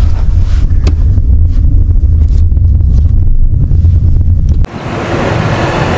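Low, steady rumble of road and engine noise inside a moving taxi's cabin. About two-thirds of the way through it cuts off suddenly and gives way to an even outdoor hiss of wind and road traffic.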